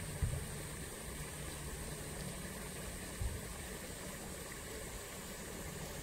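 Steady rush of flowing water, with two brief low thumps, one just after the start and one about three seconds in.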